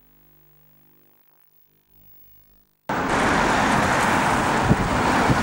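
Near silence, then about three seconds in a loud, steady rush of outdoor wind noise on the microphone cuts in suddenly.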